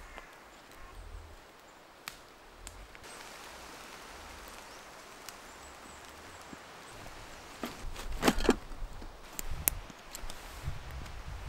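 Footsteps on a forest floor of pine needles and twigs, with a few scattered cracks. From about eight seconds in come louder rustling and sharp clicks as the webbing straps and plastic buckles of a backpack are handled.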